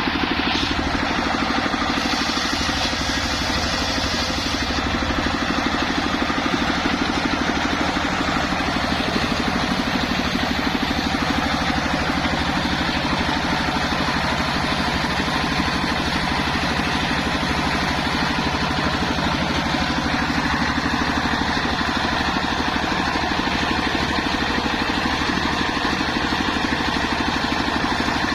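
Engine of a homemade circular-saw rig running steadily, with a brief rise in hiss about two to five seconds in.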